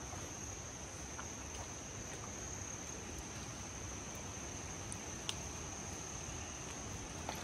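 Insect chorus making a steady, faint, high-pitched drone, with a few soft clicks, one sharper about five seconds in.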